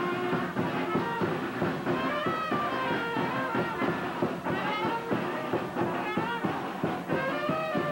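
Brass band music with a steady beat, brass carrying the melody.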